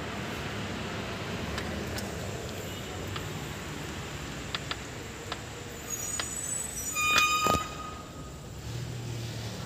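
Steady background noise with a vehicle running, and a short, high-pitched horn toot about seven seconds in.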